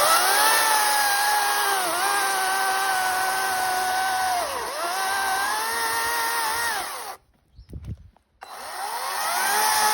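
Ego CS1800E battery chainsaw cutting jacaranda: its electric motor whines at full speed, with the pitch sagging twice as the chain bites into the wood. It cuts off about seven seconds in and spins up again shortly after.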